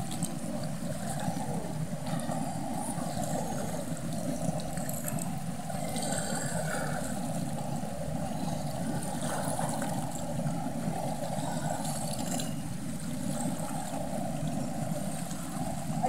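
Shallow stream running fast over stones: a steady, unbroken rush of water.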